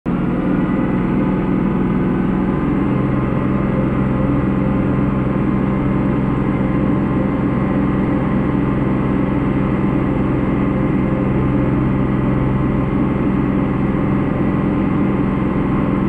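Tractor engine running at a steady speed, under load while pushing snow with a front-mounted plow.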